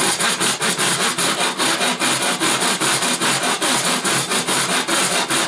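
Fine-toothed hacksaw with a free-ended blade cutting through the thin tabs that hold laser-cut aluminium dome panels, worked lightly back and forth with no downward pressure. It makes a fast, even rasping of several strokes a second.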